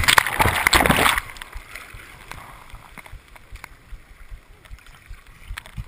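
Breaking surf washing over the camera at the water surface: a loud rush of white water for about the first second, then quieter sloshing with scattered small ticks of splashing water.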